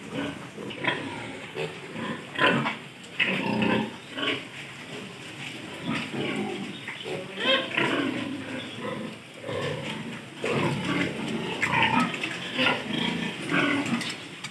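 A pen of young piglets calling in short, irregular grunts and squeals, often overlapping.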